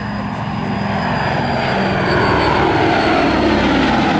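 The four radial piston engines of a Boeing B-17G Flying Fortress droning through a low flyby. The sound grows louder over the first two seconds and then holds, with the engine note slowly dropping in pitch as the bomber passes.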